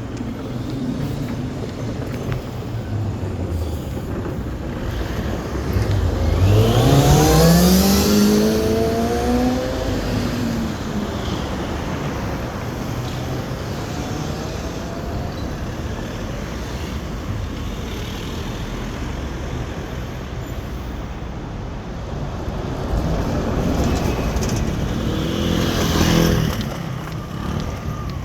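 Motor vehicle noise with steady low rumble; about six seconds in an engine speeds up, its pitch rising and then levelling off as it passes, and another vehicle swells louder and fades near the end.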